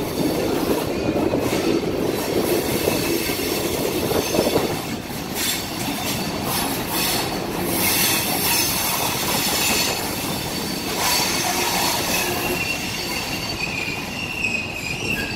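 Passenger train rolling through a canyon, heard from aboard: a steady rumble and clatter of steel wheels on the rails, with thin high wheel squeal on the curves that grows stronger near the end.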